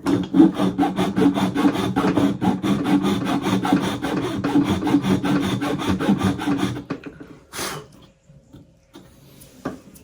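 Hand file rasping quickly back and forth across a custom wooden AK handguard piece held in a vise, about six strokes a second, to shape it to fit. The filing stops about seven seconds in, followed by two single scrapes.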